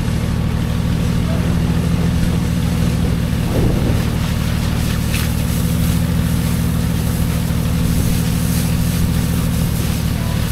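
An engine running steadily at idle, its pitch unchanging.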